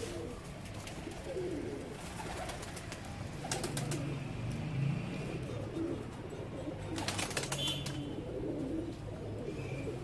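Domestic pigeons cooing softly and repeatedly in a loft cage, with a few short clicks about a third and two-thirds of the way in.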